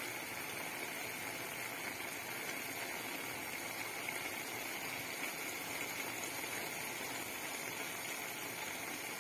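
Oyster mushrooms and egg frying in a pan: a steady sizzle.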